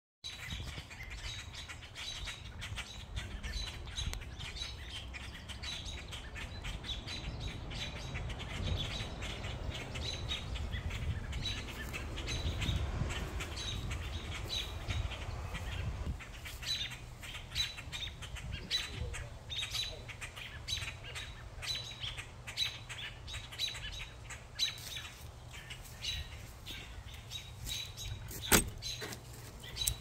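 A flock of blackbirds calling in alarm at a cat: many short, sharp calls repeating and overlapping over a low background rumble. A single sharp click sounds near the end.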